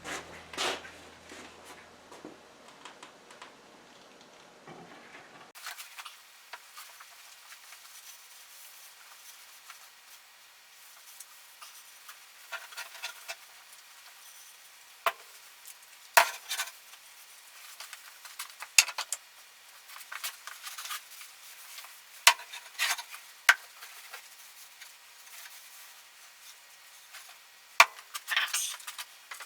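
Scattered light clicks, taps and rubbing from hand work on a wooden table while stain is applied, with a few sharper knocks, the loudest near the end. The sound is thin, with the low end missing.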